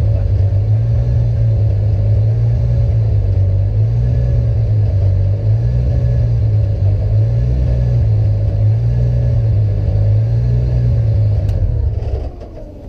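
Toyota GT86 drift car's engine idling loudly, heard from inside the cabin, its low drone rising and falling slowly and unevenly. About twelve seconds in it is switched off and the sound cuts away.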